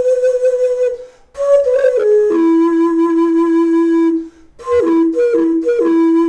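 Reproduction of an ancient K'iche' Maya wind instrument played like a flute: a held note, then a short run of notes, then a long low note, then short notes that alternate between two pitches near the end. Several notes slide down in pitch as they end, and there are two short breaks for breath between the phrases.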